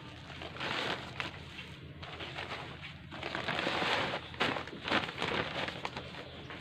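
Hands scooping a dry sawdust-and-manure potting mix into a plastic polybag: irregular gritty rustling and scraping, louder with a few sharp crackles about three to five seconds in.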